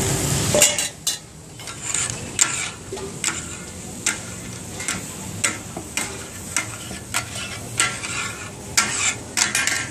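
Takka tak being made: two flat metal spatulas strike and scrape a large iron tawa griddle, chopping and turning offal, which sizzles underneath. The clacks come irregularly, about two a second, over a steady hiss of frying.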